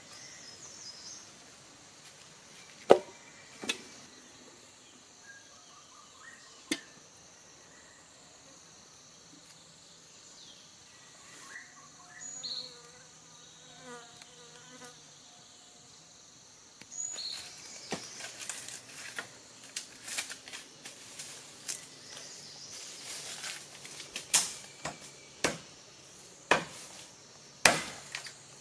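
A steady, high-pitched chorus of forest insects. Over it come a few sharp knocks of firewood being handled early on, and from about two-thirds of the way in, rustling and hard strikes of a machete chopping bamboo, the loudest near the end.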